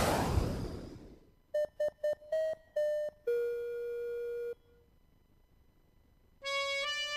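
Intro jingle: a whoosh fading away, then a quick run of short electronic beep-like notes and one held note, a pause, and theme music starting near the end.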